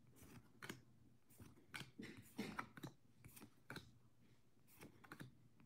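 Faint, irregular clicks and rustles of Japanese Pokémon trading cards being handled, as cards are flicked and slid one by one through the hands.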